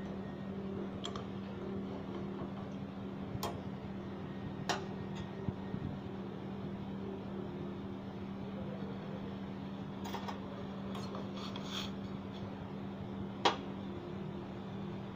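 A steady low hum, with a few sharp metal clinks of utensils against a steel saucepan; the loudest clink comes near the end.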